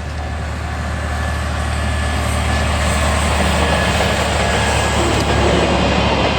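DE10 diesel-hydraulic locomotive approaching with a train of old passenger coaches, its engine drone and the rumble of the train growing steadily louder.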